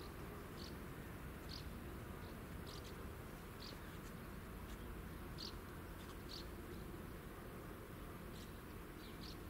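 Quiet outdoor background with faint, short high chirps at uneven intervals, roughly one a second; no crossing warning bell is heard.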